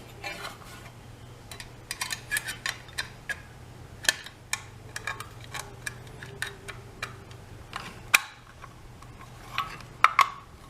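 Small metal parts clicking and tapping at an irregular pace as a dishwasher's electrical junction box is put back together, with a sharper click about eight seconds in and a quick run of clicks near the end.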